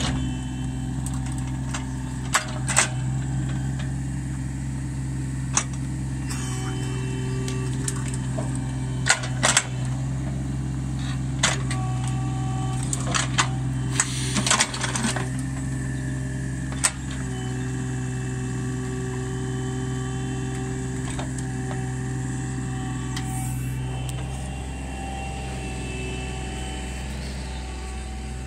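Mini excavator's diesel engine running steadily, with a hydraulic whine that shifts in pitch as the arm works, while the bucket digs soil and knocks on stones: a dozen or so sharp clacks, most of them in the first two-thirds.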